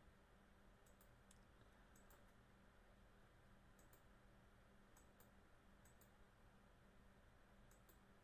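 Faint computer mouse clicks, each a quick press-and-release pair, about six times over the near-silent hum of the room.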